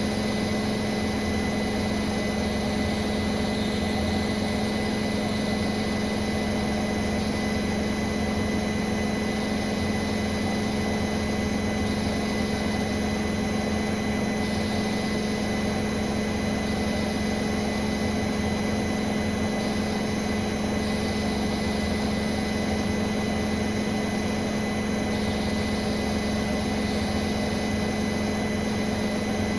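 Bosch Serie 4 WAN28281GB washing machine on its final spin at steady speed: a constant motor hum with a steady high-pitched squeal over it. The owner suspects the belt of the EcoSilence drive, the door seal being clear of the drum and the spin balanced.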